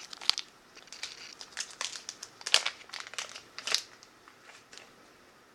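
Plastic wax-melt packaging crinkling as it is handled, in quick irregular crackles that stop about four seconds in.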